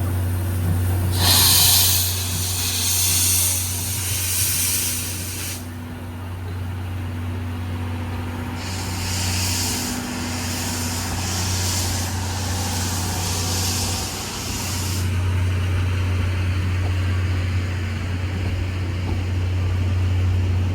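Steam locomotive hissing in two long stretches of pulsing steam noise, over a steady low rumble.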